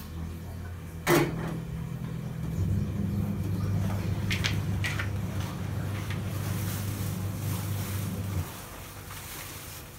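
A steady low hum, like a small electric motor running, that cuts off suddenly about eight and a half seconds in. About a second in there is a loud knock as the metal kettle is set down on the gas stove, and a few seconds later two light clicks.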